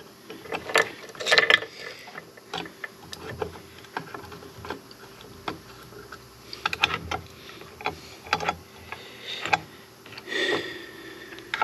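Irregular metallic clicks and clinks of hand tools and drill bits being handled and sorted in a workshop.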